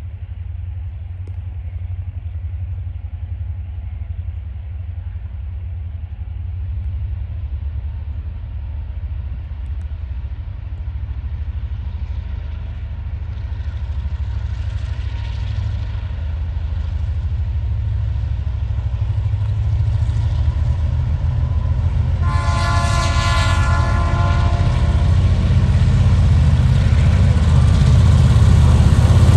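Diesel freight locomotives working up a grade, a low engine drone growing steadily louder as they approach. About 22 seconds in, the lead locomotive sounds a long multi-tone horn blast as it nears the level crossing.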